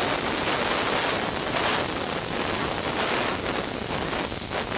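Aluminium pressure cooker whistling: a loud, steady hiss of steam escaping past the weight valve. It is the single whistle that marks the dal and greens inside as cooked under pressure.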